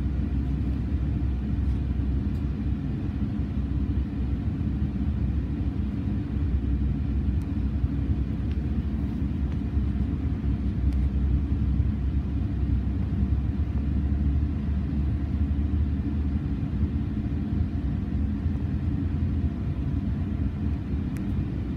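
Steady low rumble inside a moving passenger train car as it rolls along the track. The deepest part of the rumble eases off about three-quarters of the way through.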